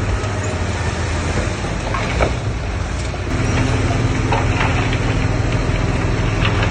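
Heavy diesel machinery engine running steadily. About halfway through it gets louder and a higher steady tone comes in as the engine works harder, with a few short knocks along the way.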